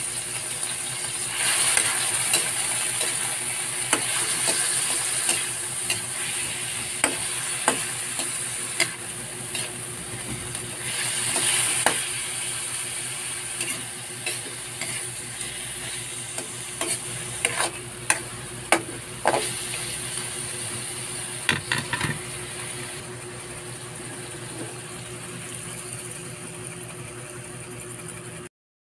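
Small chicken pieces sizzling in an aluminium wok while a metal spatula stirs and scrapes them, with sharp clinks of the spatula against the pan.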